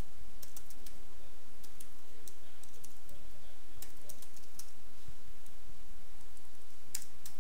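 Computer keyboard keystrokes, scattered and irregular, with a couple of louder clicks near the end, over a steady low background hum.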